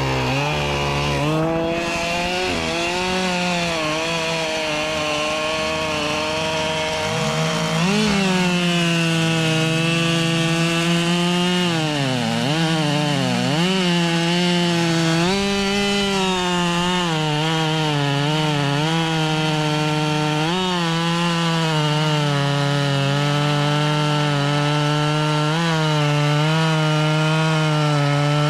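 Husqvarna 572 XP two-stroke chainsaw running hard while cutting wood. Its pitch sags under load several times, most deeply twice around the middle, then recovers.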